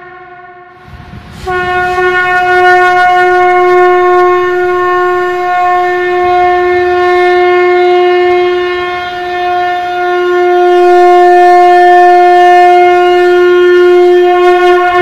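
Conch shell (shankh) blown in one long, steady blast. The previous blast dies away at the start, and about a second in a breathy attack opens a held, bright tone rich in overtones.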